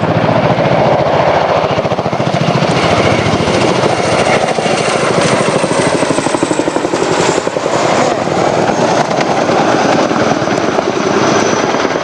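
RAF Chinook tandem-rotor helicopter flying its display: the loud, rapid beating of its twin rotors, with a thin high turbine whine over the top.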